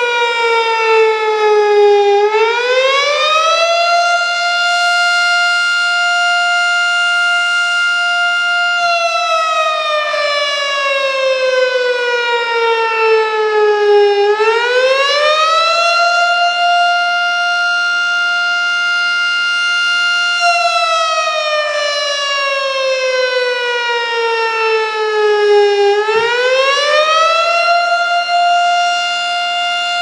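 Federal Signal STH-10 fire siren sounding its attack cycle, a loud wailing tone: it climbs in about two seconds, holds for about five, then slides slowly down, repeating roughly every twelve seconds. A healthy-sounding siren.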